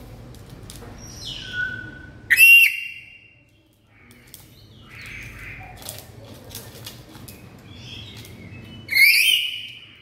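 Black-capped lory calling: two loud, shrill screeches, one about two seconds in and one near the end, with softer, shorter calls between them.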